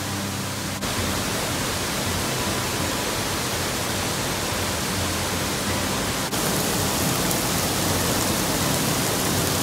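Waterfalls in a rock gorge: a steady rush of falling and splashing water. The rush shifts slightly twice, about a second in and about six seconds in.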